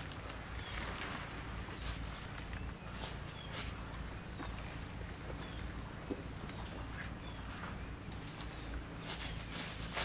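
A steady, high-pitched chorus of insects trilling, with a few soft rustles in the undergrowth, the loudest just before the end.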